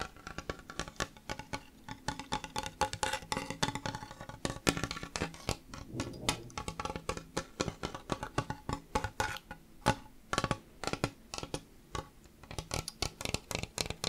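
Fingertips and nails tapping on a flat, painted Easter-egg decoration in quick, uneven flurries of sharp taps, each with a faint hollow ring.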